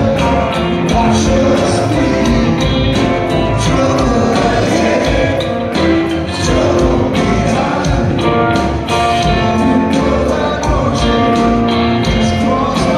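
A rock band playing live, with a drum kit keeping a steady beat under upright bass and other instruments.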